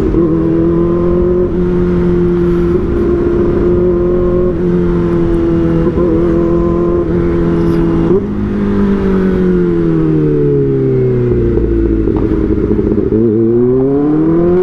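Kawasaki ZX-4RR's 400 cc inline-four engine running at high revs under way. After about eight seconds the revs fall away as it slows, and near the end they rise again.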